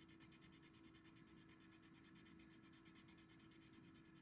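Faint scratching of a watercolor pencil scribbling a colour swatch onto toothy watercolor paper, in rapid, even strokes.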